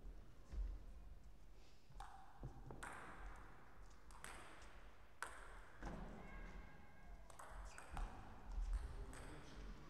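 Sparse, irregular light taps and clicks of celluloid-type table tennis balls bouncing, in a large echoing hall, with a brief squeak about seven seconds in.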